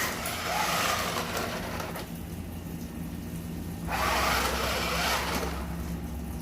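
Toy remote-control dump truck driving on its fast setting, its electric motor and gears whirring with wheel noise in two spells: for about the first two seconds, and again louder from about four seconds in.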